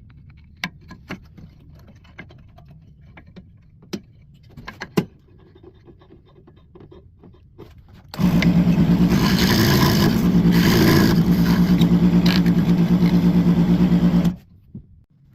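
Light handling clicks and knocks, then about eight seconds in a power drill starts up and runs at a steady pitch for about six seconds before stopping abruptly.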